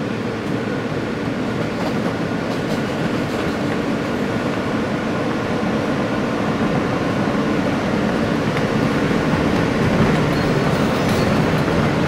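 New York City subway train running on open-cut track, heard from inside the car: a steady rumble of wheels on rails that grows slightly louder toward the end, with a few faint clicks near the end.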